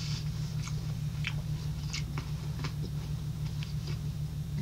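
Close-miked chewing of ripe cantaloupe with the mouth closed: soft, wet mouth clicks every half second or so. A steady low hum runs underneath.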